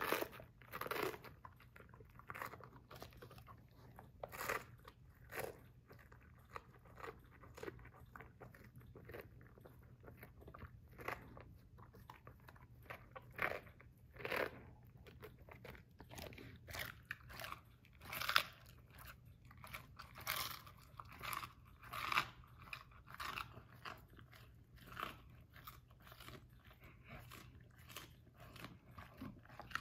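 Basset hound crunching and chewing romaine lettuce leaves: irregular crisp crunches, about one or two a second.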